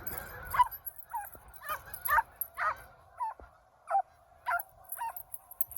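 A dog whining in short, high cries, about ten of them at roughly two a second, typical of a bird dog straining on its leash after geese.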